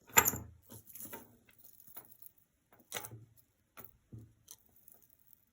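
Pieces of costume jewelry clicking and clinking as they are handled, a sharp click at the start, then scattered lighter taps.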